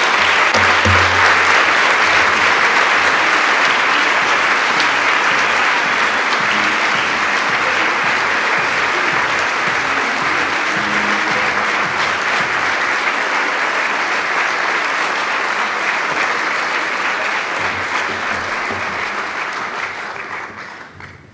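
Large audience applauding in sustained, dense clapping that fades out near the end.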